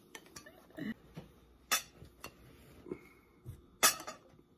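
A serving spoon clinking against a ceramic bowl and plates as rice is served: scattered light clicks with two sharper clinks, the louder one near the end.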